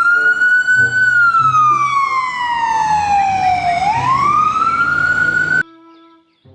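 Ambulance siren wailing: the pitch rises, falls slowly over about three seconds, rises again, then cuts off suddenly shortly before the end.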